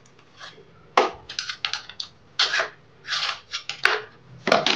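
Screwdriver prying and scraping at the rear cooling fan of a water-pump electric motor, working it loose from the shaft against the metal end housing: a run of short, irregular scrapes and clicks that starts about a second in.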